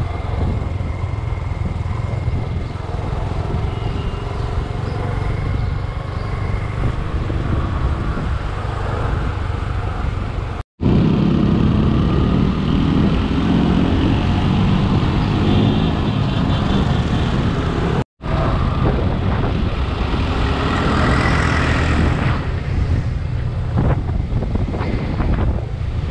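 Motorcycle running along the road, heard from the moving bike as a steady engine and road rumble. The sound drops out for an instant twice, at the video's cuts, and is a little louder after the first one.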